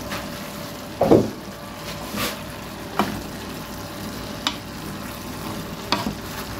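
Wooden spoon stirring braised cabbage and potatoes in a stone-coated frying pan: about six short knocks and scrapes of the spoon against the pan, the loudest about a second in, over a steady faint sizzle from the still-hot pan.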